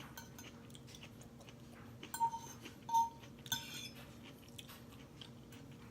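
Tableware being handled at a meal: scattered light clicks and knocks, with two short ringing clinks in the middle, about a second apart, followed by a brief rustle.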